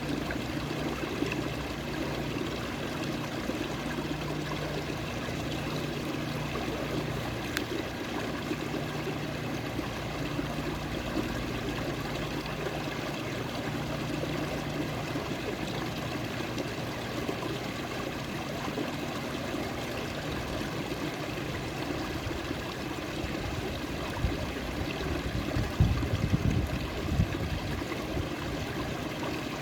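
A forest stream flowing steadily, with water trickling and splashing. A few louder low thumps come near the end.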